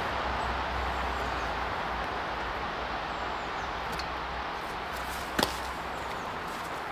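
Steady hiss of a metal-melting furnace's burner running, with a sharp click about five and a half seconds in.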